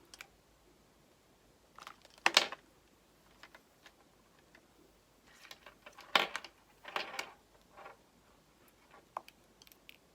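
Handling noises from EarPods and their packaging: a few short rustles and taps, loudest about two seconds in and again around six to seven seconds, with small clicks between.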